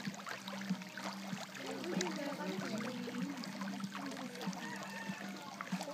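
Indistinct chatter of several people talking at once, over a steady low hum, with small scattered clicks.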